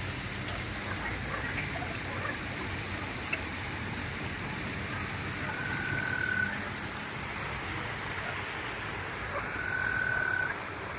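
Frogs calling in a chorus over a steady hiss, with scattered short croaks and clicks. A clear held note, steady in pitch and under a second long, stands out twice, about halfway through and near the end.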